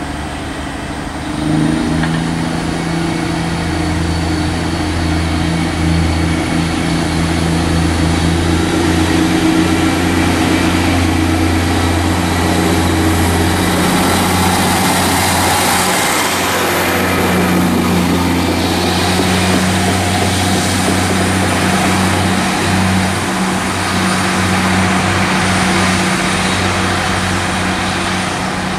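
Class 153 diesel multiple unit's Cummins diesel engine opening up about a second and a half in, then running under power as the unit pulls away, with a steady low drone. A rushing noise swells around the middle.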